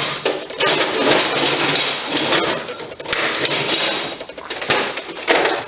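Metal hand tools clattering and clinking as someone rummages through a toolbox, in long bursts of dense jangling with a sharp loud clank near the end.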